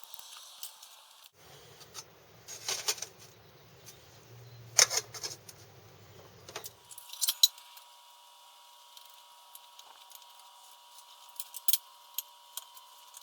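Metal cookware being handled: scattered clicks, clinks and scraping clatters, loudest about 5 and 7.5 seconds in.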